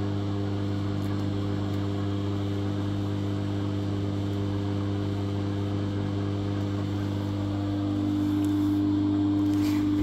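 Balay front-loading washing machine running a spin program: a steady electrical hum that grows a little louder about eight seconds in.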